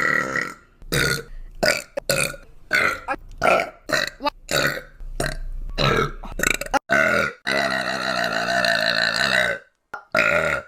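A woman burping: a quick run of many short burps, then one long, drawn-out burp near the end.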